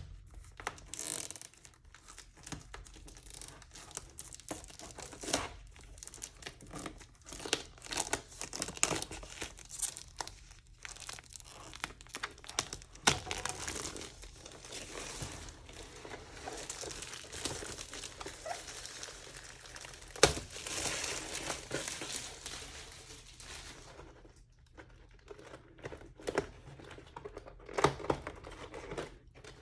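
Packaging of diamond painting kits being opened and handled: irregular crinkling and tearing with scattered sharp clicks and a few louder snaps.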